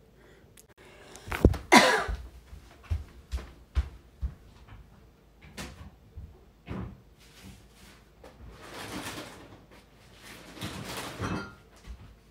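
Knocks, bumps and rustling of things being handled, with two louder knocks about a second and a half in and longer spells of rustling near the end.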